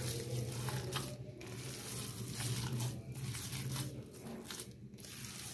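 Hands kneading and squeezing raw minced chicken and mutton kebab mixture in a plastic bowl, a run of short mixing strokes about one or two a second. A steady low hum underneath dies away about four seconds in.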